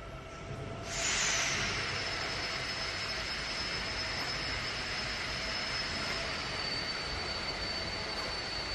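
Gas-fired melting furnace burner running with a steady roar and a thin high whistle. The roar comes in abruptly about a second in, over a quieter machine rush, and then holds steady.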